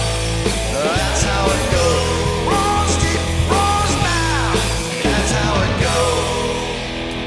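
Rock band recording playing: a full band with a melody line that slides up and down in pitch.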